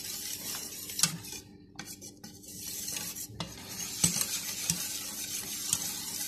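A wire whisk stirring cornstarch into cold milk in a metal bowl, the wires scraping and clinking against the bowl, with a few sharper clinks. The whisking drops away briefly about a second and a half in, then picks up again. This is the stage of dissolving the starch in the cold milk so it doesn't clump.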